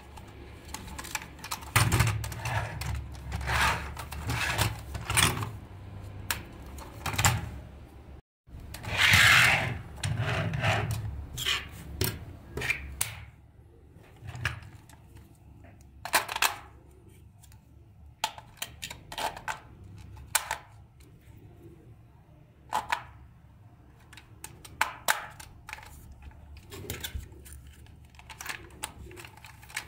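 Hard plastic toy parts being handled: irregular clicks, taps and knocks of plastic against plastic, with a louder scraping rustle about nine seconds in.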